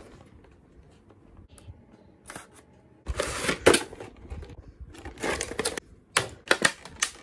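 Thin clear plastic blister tray crinkling and crackling as it is handled and toy keys are pried out of it, starting about three seconds in. There are sharp plastic clicks near the end.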